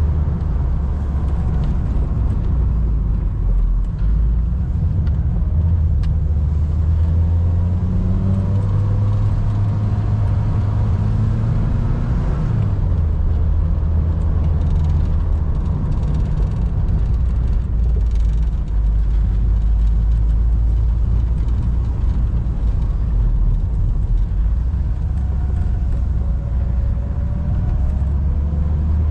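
1988 VW Golf Mk1 Cabriolet's 1.6-litre four-cylinder engine pulling the car along, its note rising, dropping sharply at a gear change about twelve seconds in, holding steady, then rising again near the end. Heard from the open-topped cabin over tyre and wind noise.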